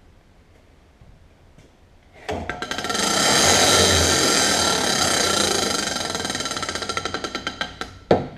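Canedy & Otto drill press head switched on: the motor and spindle run up quickly to a steady whine with a fast rattling pulse, then it is switched off and coasts down, the pulses slowing, with a knock at the end. It is a test run to see whether the head has come out of backgear.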